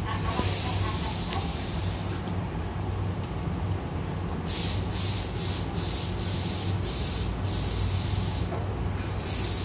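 Stopped Hankyu train standing at a platform with its doors open: a low steady hum under hisses of compressed air, one lasting nearly two seconds at the start, then a run of short hisses about two a second in the second half.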